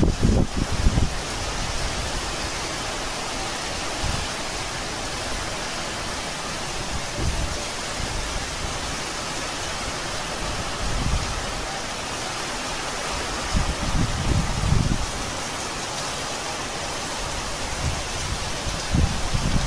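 Heavy cyclone rain pouring steadily, with gusts of wind buffeting the microphone every few seconds, strongest about a second in and around the middle of the clip.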